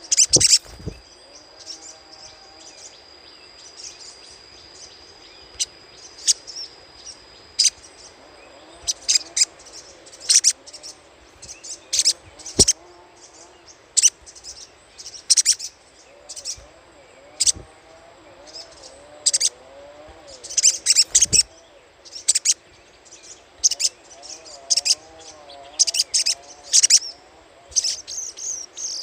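Crimson sunbird giving its sharp, very high chattering call notes in quick irregular bursts, some single and some in rapid runs. A thin steady high tone runs underneath for the first third.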